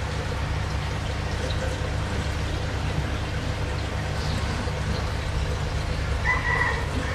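Aquarium filter pump running: a steady low hum with water trickling and pouring back into the tank.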